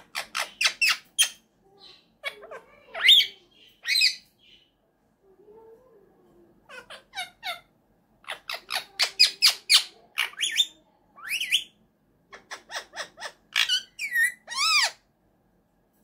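Indian ringneck parakeet calling: quick runs of short, sharp, high-pitched chirps and squawks with short gaps between them, and a few drawn-out falling calls near the end.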